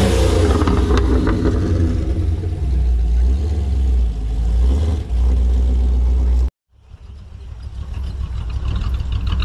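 Car engine and exhaust running with a deep rumble, revving briefly at the start and then holding steady. About six and a half seconds in the sound cuts off abruptly, then another car's engine and exhaust noise builds back up.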